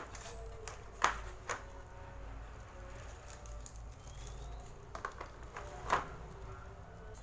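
Hard orange plastic rack parts knocking and clattering against aluminium tubes in a cardboard box as they are picked up and set down. A few sharp knocks, the loudest about a second in and another near six seconds.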